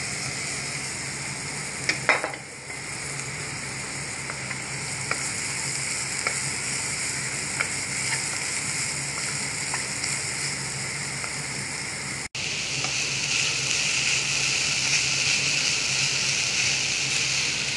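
Chopped bitter gourd and grated coconut sizzling in a frying pan while being stirred with a wooden spoon, with a few sharp knocks about two seconds in and light scattered ticks of the spoon. The sound cuts out for an instant about twelve seconds in, and the sizzle is louder after it.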